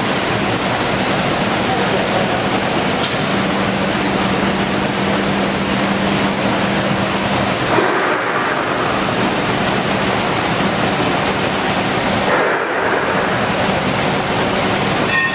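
Steady loud hiss of an automatic spray-painting line at work, with a low steady hum that stops about halfway through.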